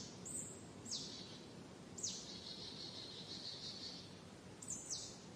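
Evening forest ambience: short bird calls that sweep quickly downward in pitch, about one a second and closer together near the end, over a faint steady high-pitched chorus and a low background rumble.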